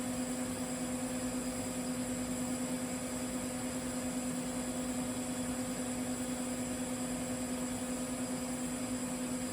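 TIG welding arc running steadily on carbon steel pipe with 308 stainless filler rod: a constant hum over an even hiss, with no breaks.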